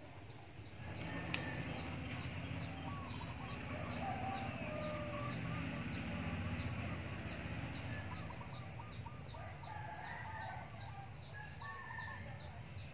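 Chickens clucking, with a short high chirp repeating about three times a second over a low rumble, and one sharp tick about a second and a half in.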